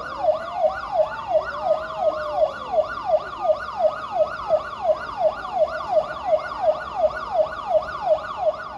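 Siren sound effect in a dance music mix: a rapid electronic yelp, its pitch falling sharply about three times a second, with one slower rising-and-falling wail near the start.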